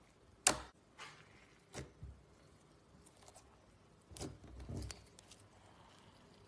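Slime being handled, giving a few short sticky clicks and squelches: the loudest about half a second in, a few lighter ones after it, and a longer squishy cluster at about four to five seconds.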